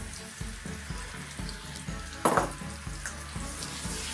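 Pieces of carp sizzling as they shallow-fry in oil in a frying pan, a steady hiss with a louder burst of spattering about two seconds in. Background music with a steady low beat plays underneath.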